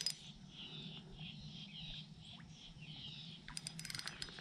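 Faint birdsong: short chirping notes repeated two or three times a second. A quick run of rapid clicks comes near the end.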